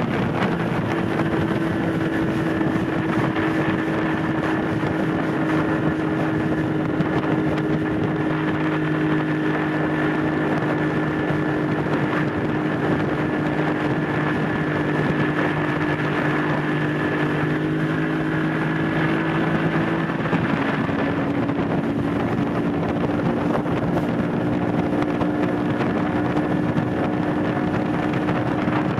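Bass boat's outboard motor running at a steady cruising speed, with wind buffeting the microphone. The engine's note dips slightly about twenty seconds in.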